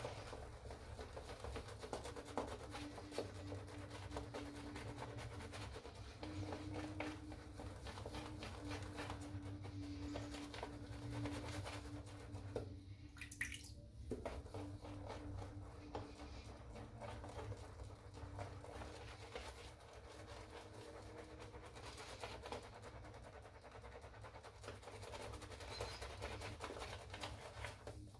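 Shaving brush working soap lather over a stubbled face: continuous soft scratchy brushing and squishing of wet bristles and lather, pausing briefly about halfway.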